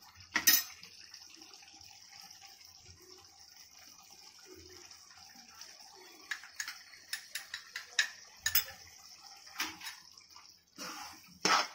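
Tomato-onion masala simmering and sputtering with a steady faint hiss in a steel kadai, with sharp clinks of steel spoons against the pan and spice bowls as turmeric and chilli powder go in and are stirred.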